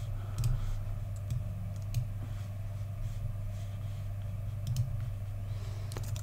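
Scattered clicks of a computer mouse and keyboard, a few sharp taps spread irregularly, over a steady low hum.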